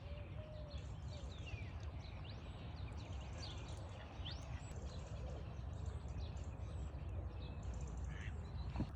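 Small birds chirping and singing, many short rising and falling whistles throughout, over a steady low rumble.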